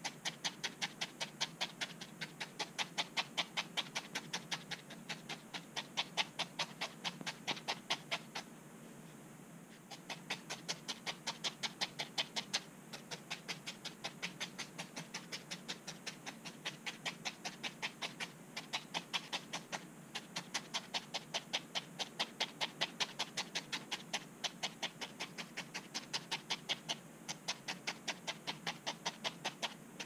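Felting needle stabbing fast and rhythmically into wool wrapped on a foam core, about four to five pokes a second, with one short pause about eight and a half seconds in. Each poke works the wool fibres down into the foam so they knit in.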